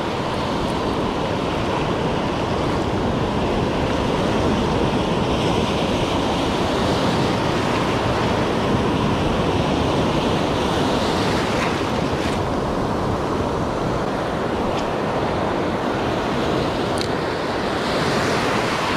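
Sea surf breaking and washing steadily over a shallow rocky reef, with wind on the microphone.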